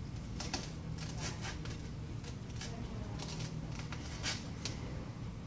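Irregular light clicks and scrapes of small hand tools working on an iPad 3 during a glass replacement, over a steady low hum.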